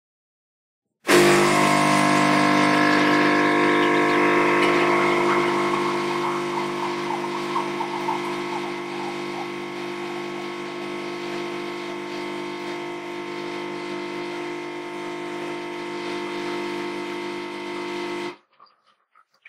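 Automatic coffee machine brewing: a steady, machine-like hum that starts suddenly about a second in, is loudest at first and eases down over the next few seconds, then holds steady until it cuts off suddenly near the end.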